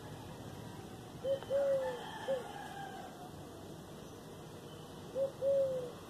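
A dove cooing: a low three-note phrase, a short note, a longer falling note and another short note, given twice about four seconds apart.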